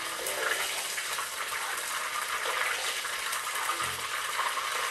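Pieces of flathead fish frying in hot olive oil in a wok, a steady sizzle with splashing of the oil caused by the water in the fish, as the pieces are moved about with a spoon.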